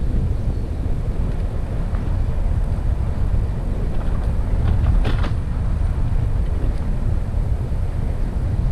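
Steady low rumble of wind buffeting the microphone on a moving recumbent trike, with a brief clatter about five seconds in.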